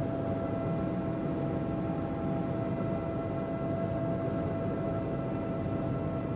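Helicopter cabin noise heard from inside: the steady noise of engine and rotors, with a constant whine running through it.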